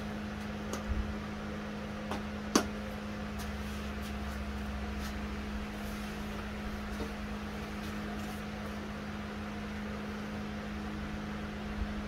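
A steady mechanical hum, with a few light clicks and one sharper knock about two and a half seconds in.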